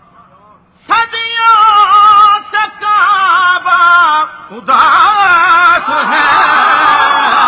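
A man's loud chanted recitation into a microphone, starting about a second in after a short pause, his voice sliding and wavering on long held notes.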